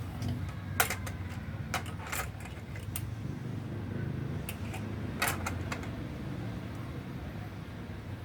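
A handful of sharp clicks and light taps, about five, from small hard parts being handled, over a steady low background rumble.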